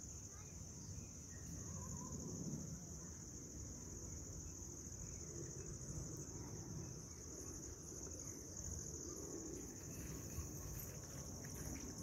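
Faint steady insect chorus, crickets trilling in one continuous high-pitched drone, over a low rumble.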